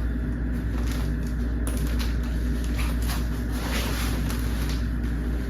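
Steady low background hum with a few faint rustles and light clicks, like gear being handled.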